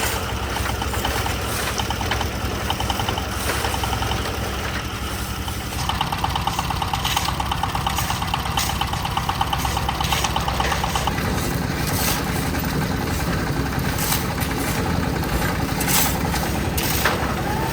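Small engine-driven concrete mixer running steadily, with a fast rhythmic rattle in the middle stretch and occasional sharp clanks.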